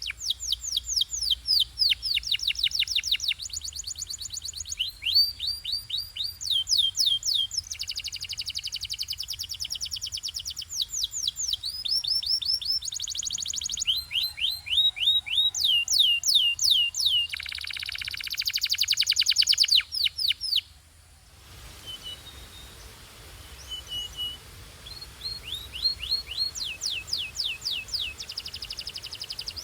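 Canary singing: fast rolls of repeated downward-sweeping notes and trills, one phrase after another, with a brief break about two-thirds of the way through before softer phrases resume.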